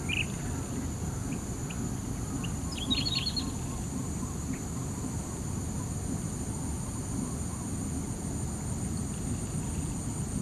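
Insects drone steadily at a high pitch over a low background rumble. A short, quick run of bird chirps comes about three seconds in.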